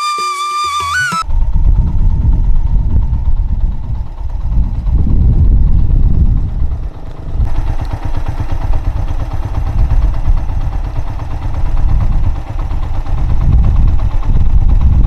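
Flute music cuts off about a second in, giving way to a motorcycle on the move: a loud, low rumble of engine and road noise that rises and falls unevenly.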